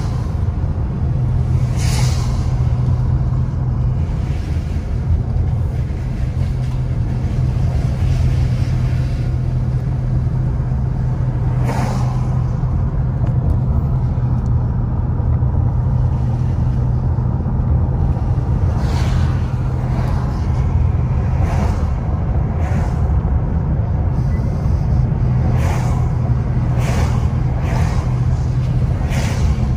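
Car cabin noise while driving: steady engine hum and tyre rumble on the road, with about ten brief knocks scattered through, most of them in the second half.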